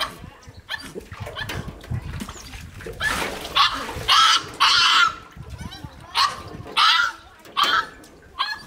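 A puppy crying in repeated short, high whines while it is being bathed, starting about three seconds in. Water is poured over it from a metal bowl, splashing into the metal basin around the four-second mark.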